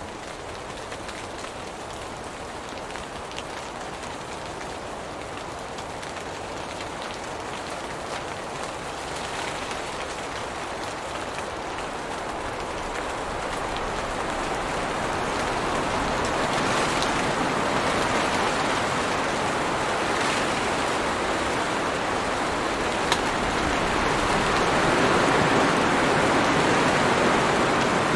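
Steady rain falling on tree leaves, growing heavier and louder through the second half, with a single sharp tap about three-quarters of the way through.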